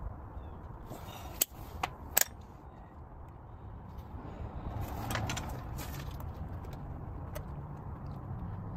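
A few sharp metal clicks and clinks from a socket ratchet being taken off a car's wheel hub and handled, over a low steady hum. Three clicks come close together in the first seconds, and some rougher handling noise follows.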